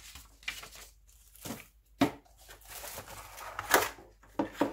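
Paper and cardboard packaging being handled: leaflets rustling, then a folded cardboard insert scraped and pulled out of a keyboard box. The sounds come as irregular rustles and sharp scrapes, the loudest about two seconds in and just before four seconds.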